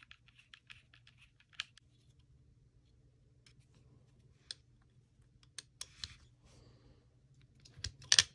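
Scattered small clicks and taps of metal tools and parts being handled on an airsoft rifle's lower receiver, with a brief scrape about six seconds in. Near the end comes a quick cluster of sharper, louder clicks as a hex key is fitted into a grip screw. A faint low hum runs underneath.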